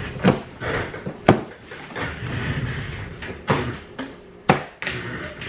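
A large cardboard box being handled and opened: several sharp knocks on the cardboard, with rustling and scraping between them.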